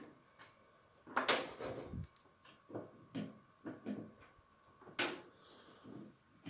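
Handling noise from multimeter probes and leads moved around the oven's element terminals and sheet-metal housing: a scraping clatter about a second in, a series of light knocks, and a sharp click about five seconds in.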